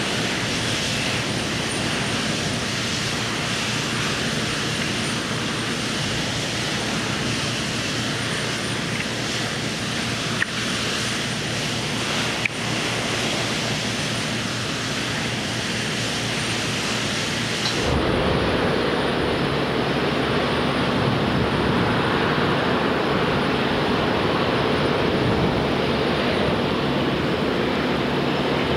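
Steady drone of heavy machinery engines running, with two faint clicks a couple of seconds apart midway. About 18 seconds in the sound changes suddenly to a duller, lower engine drone.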